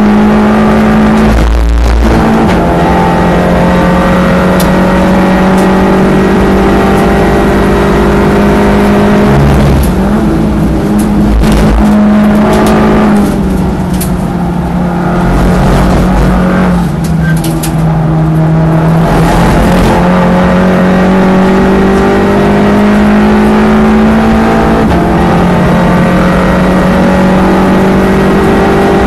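A Golf MK7 GTI race car's turbocharged 2.0-litre four-cylinder engine, heard from inside the cabin at full throttle and shifting gears. About halfway the engine note drops and quietens for a few seconds as the car slows for a corner, then climbs steadily again as it accelerates hard.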